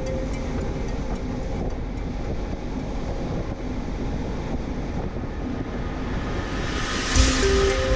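Steady rushing wind noise on the microphone over open water. A background-music melody fades out in the first second or two and starts again near the end, led by a loud swell of hiss.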